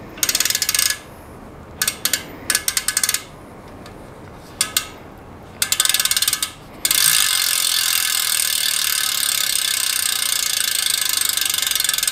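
Four-pawl freehub of a Mercury S5 carbon rear wheel ratcheting: short bursts of rapid clicking as the freehub body is turned by hand, then a steady fast buzz of pawl clicks from about seven seconds in as the wheel spins and the hub freewheels.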